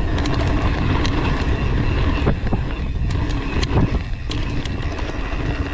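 Wind buffeting the camera microphone on a mountain bike riding fast down a dirt singletrack, with the tyres rumbling over the trail and a few knocks and rattles from bumps, three of them sharper, in the second half.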